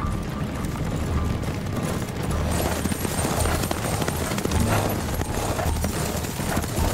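A team of horses galloping, with rapid hoofbeats and a stagecoach rattling along behind them. The hoofbeats and rattle grow louder and denser about two and a half seconds in.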